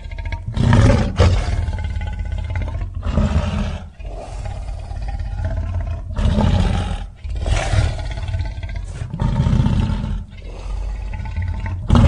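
Tarbosaurus roar sound effect: a string of about seven deep roars and growls, each a second or two long, with brief breaks between them.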